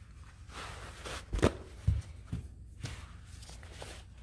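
Handling sounds: a few light knocks and rustles as a wooden cutting board and a shop towel are handled on a paper-covered worktable, with the towel starting to wipe sanding dust off the board.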